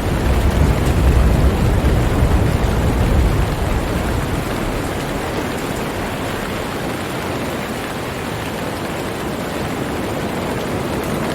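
Steady hiss of heavy rain, with a deep rumble of thunder over the first few seconds that dies away about four to five seconds in.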